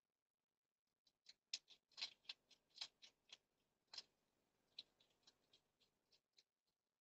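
Hedgehog crunching dry food from a bowl: a faint run of irregular clicks and crackles that starts about a second in and stops about a second before the end.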